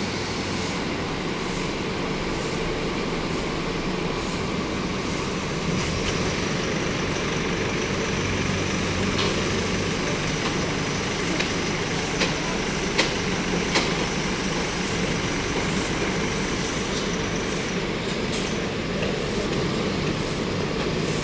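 Steady rumble of vehicles and road noise, with a few sharp clicks or knocks in the middle.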